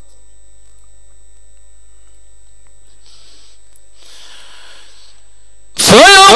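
Steady electrical hum from the microphone and sound system during a pause in Quran recitation, with two faint breathy hisses partway through. Near the end, the reciter's voice comes in loud and sudden on a long melodic note with a wavering vibrato.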